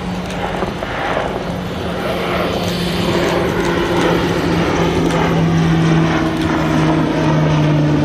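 Grumman E-2C Hawkeye's twin Allison T56 turboprop engines and propellers in flight, a steady drone that grows louder while its pitch slowly drops as the aircraft passes.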